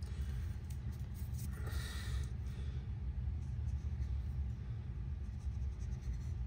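Steady low background rumble, with a short faint scratch of a marker pen drawn across copper pipe about two seconds in.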